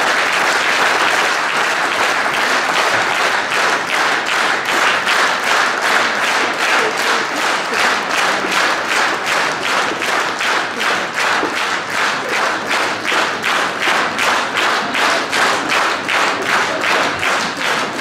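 A large audience applauding in a concert hall. After a few seconds the clapping falls into unison, a steady rhythmic beat of about three claps a second.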